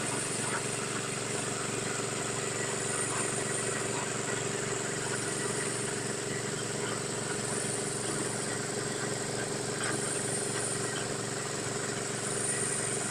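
Small engine on well-drilling equipment running steadily at an even speed.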